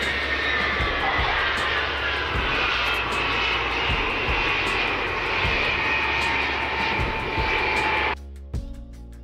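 Ilyushin Il-76's four turbofan jet engines running during touchdown and landing rollout: a steady loud jet roar with high whining tones that slowly fall in pitch. The sound cuts off about eight seconds in.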